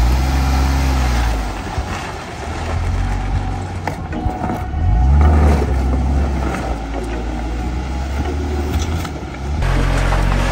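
Jeep Gladiator engine running under load as the truck crawls over rocks, revving up near the start and again about five seconds in.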